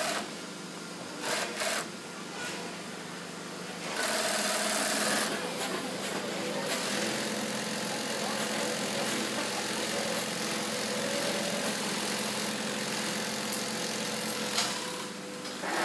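Keestar GC3 double-needle, cylinder-bed industrial sewing machine running. It starts abruptly about four seconds in and runs steadily until near the end, over a steady hum.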